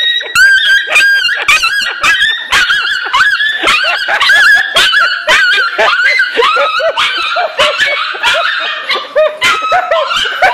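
A dog yapping over and over in rapid, high-pitched yips, several a second, without a break.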